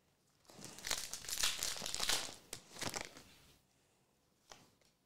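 Foil wrapper of a Pokémon Surging Sparks booster pack crinkling and tearing as it is opened, for about three seconds, then one light tap near the end.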